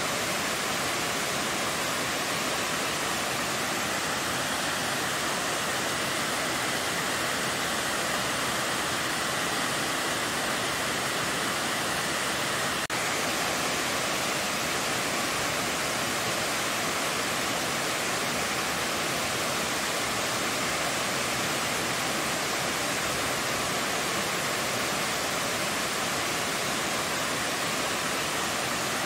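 Waterfall cascading down a rock face: a steady rush of falling water, broken only by a split-second dropout near the middle.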